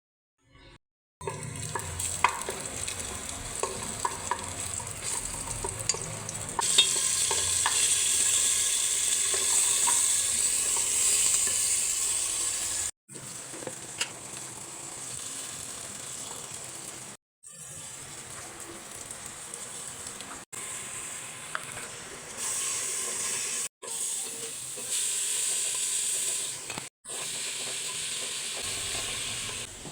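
Food sizzling as it fries in a pan, with a utensil stirring and tapping against it. The sound comes as several short clips, each cut off abruptly.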